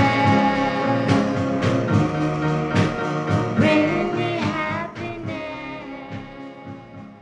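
An oldies soul record with drum hits in its closing bars, fading out over the last couple of seconds.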